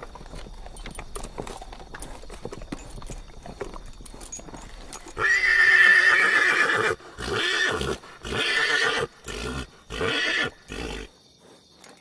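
Horse hooves clip-clopping, then about five seconds in a loud horse whinny lasting nearly two seconds, followed by several shorter neighing calls that stop about a second before the end.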